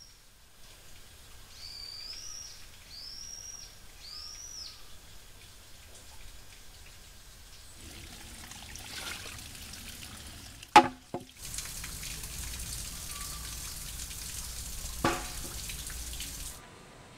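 Garden sounds: a bird gives four short arched chirps early on, then water runs and splashes steadily, loudest in the second half, with two sharp ringing knocks, the first the loudest. The water cuts off suddenly near the end.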